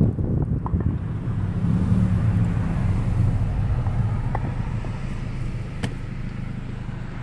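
Volkswagen GTI MkV's turbocharged four-cylinder engine and road noise, heard from inside the cabin while driving. It is a steady low hum that slowly fades, with a few light clicks.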